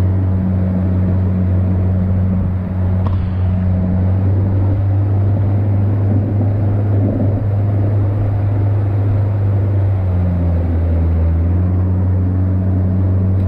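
Engine of a rigid inflatable boat running steadily at speed: a loud, constant low drone, with the rush of water and wind over it. The engine note dips briefly about ten seconds in, then steadies again.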